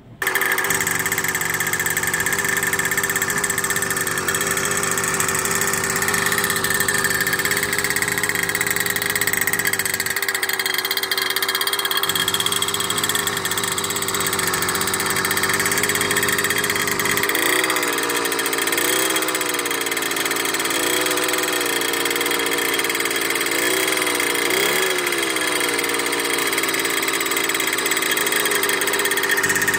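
A 49cc two-stroke bicycle engine kit, ported and polished, with an expansion-chamber muffler, running at idle. In the second half it is revved briefly several times, its pitch rising and falling with each twist of the throttle.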